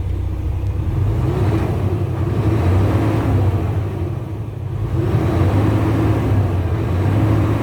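Isuzu 6WF1 inline-six truck diesel running, its revs rising and falling twice. Its supply pump's PCV valves have just been replaced to cure overpressure and hard starting, and the power is being checked.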